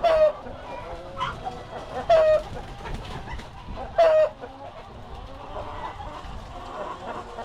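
A large flock of breeder hens and roosters clucking in a chicken house. A steady din of overlapping calls runs throughout, with three loud, short squawks about two seconds apart in the first half.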